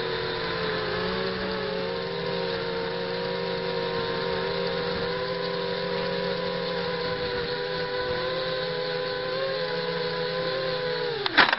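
Brushless motors and propellers of a ZMR 250 racing quadcopter, heard from its own onboard camera, whining steadily with small shifts in pitch as it flies low. Near the end there is a loud knock as it comes down into the grass, and the motor whine drops away quickly as the motors stop.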